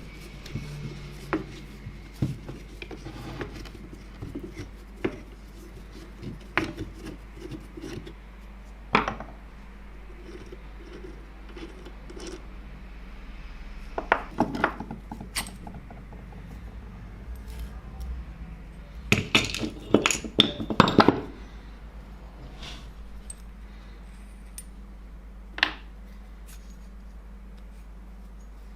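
Metal parts of a vintage hand drill clinking and knocking as they are handled, in scattered single strikes with a burst of louder clatter about two-thirds of the way through.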